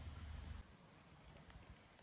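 Near silence: faint ambient hiss with a low rumble that drops away about half a second in, and a couple of faint ticks.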